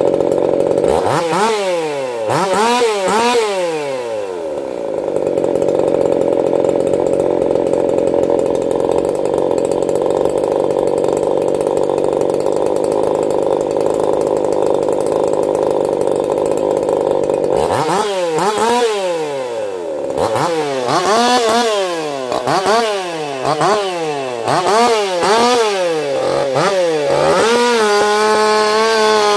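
Echo CS-4910 two-stroke chainsaw, fitted with a taper-top piston and swapped crankshaft, revved in quick blips, then held at high speed for about thirteen seconds. After that it is blipped up and down a string of times and settles to a steady lower note near the end.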